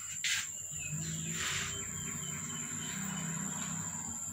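Outdoor ambience: a steady high insect drone with faint bird chirps, and two short rustling noises about a third of a second and a second and a half in.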